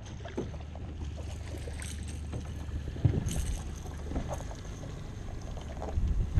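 Striped bass being netted at the side of a riveted metal boat: splashing at the surface, then scattered knocks of the net and fish against the hull, the sharpest about three seconds in and more near the end as the net comes aboard. A steady low wind rumble on the microphone runs underneath.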